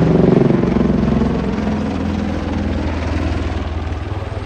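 Helicopter in flight, its rotor beating in fast regular pulses over the engine's running, growing fainter as it flies away.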